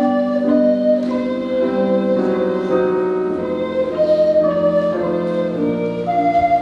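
A recorder ensemble playing an arranged classical piece, several parts moving together in held notes.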